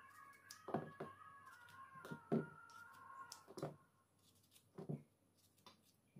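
Small round green eggplants dropped one at a time into a plastic bowl, each landing with a dull knock, about five in all. A faint steady high tone runs underneath and fades out about three seconds in.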